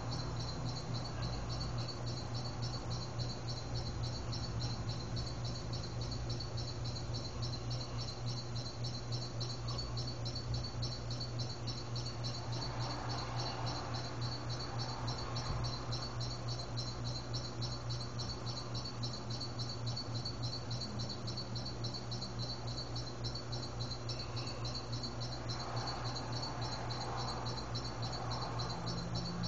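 Insects chirping in a steady, fast pulsing trill, over a constant low hum.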